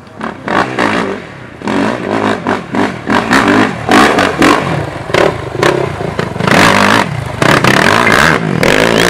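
Sport quad (ATV) engine revving hard, rising and falling as the rider works the throttle over rough ground, with repeated clattering and scraping knocks of the machine and rocks.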